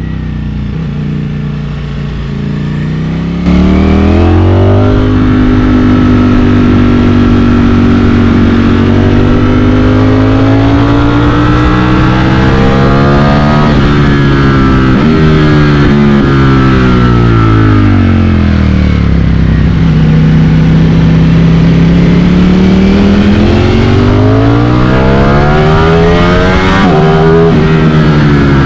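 Ducati Streetfighter V4's 1103 cc V4 engine pulling and rolling off on the road. Its pitch climbs and falls several times over the stretch as the throttle is opened and closed. The sound gets suddenly louder about three seconds in.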